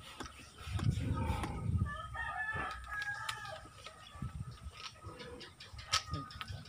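A rooster crowing about two seconds in, among small clicks and knocks from a PVC marble toy gun being handled, with one sharp click about six seconds in.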